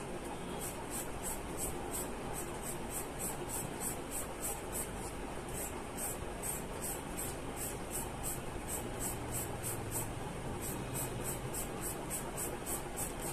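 Charcoal pencil scratching on drawing paper in quick, even shading strokes, about four a second.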